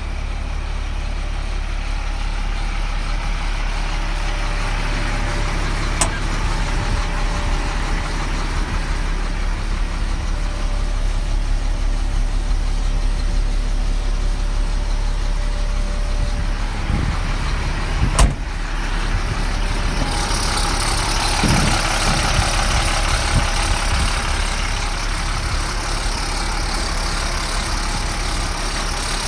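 2001 International 4900 truck's diesel engine idling steadily. A single sharp knock comes a little past the middle.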